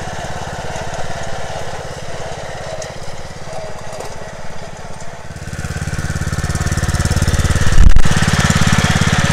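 Troy-Bilt riding lawn mower engine running steadily as the mower drives along. It grows louder about five seconds in as it passes close, with a brief loud thump near the end.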